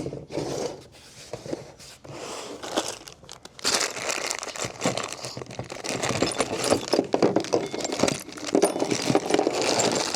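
Packaging being crinkled and torn open while parts are unpacked, with many small clicks and knocks of hardware. It gets louder and busier about three and a half seconds in.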